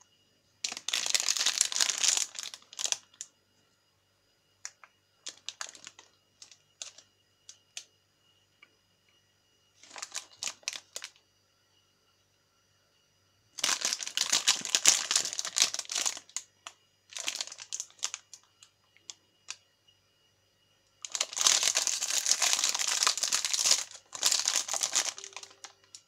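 Metallised plastic snack wrapper crinkling and crackling in the hands as it is handled and torn open, in several bursts with pauses and scattered small crackles between them.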